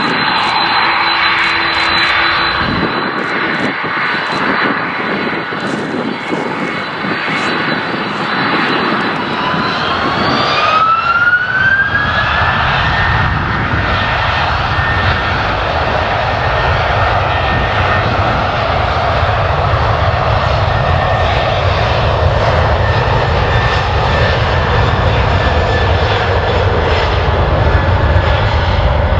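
Airbus A330's jet engines whining at low power, then spooling up about ten seconds in, the whine rising in pitch. They settle at takeoff thrust with a steady deep rumble for the takeoff roll.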